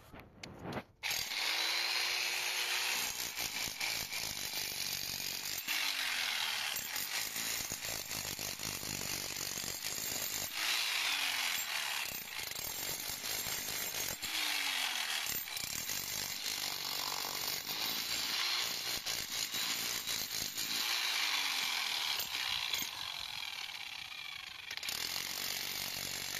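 Corded angle grinder cutting into a concrete slab, running continuously with a harsh grinding noise. The motor's pitch sags roughly every four seconds as the disc is pushed into the cut.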